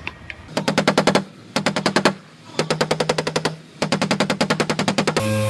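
Rapid hammering from an air tool working on car body metal, in four bursts of about ten sharp blows a second with short pauses between them.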